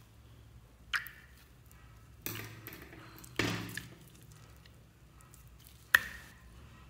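Wet, sticky slime squelching twice as glitter slime is squeezed out of a cut-open mesh stress ball into a glass bowl of slime. There are also two sharp clicks with a brief ring, one about a second in and a louder one near the end.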